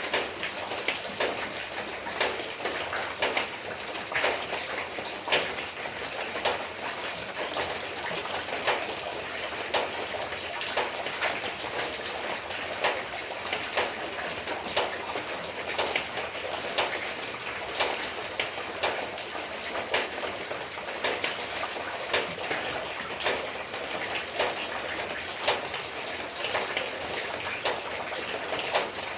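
Steady rain falling, with individual drops striking nearby at irregular intervals, about one every second or so, over the hiss of the shower.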